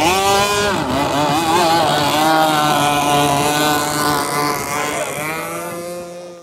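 Gasoline two-stroke engine of a radio-controlled boat running on the water. Its pitch drops sharply right at the start, wavers for about a second, then holds steady at a lower pitch and fades near the end.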